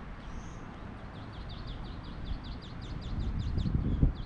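A small bird calling a rapid series of short, downward-slurred high notes, about four or five a second, over a steady low outdoor rumble that swells into a low thump near the end.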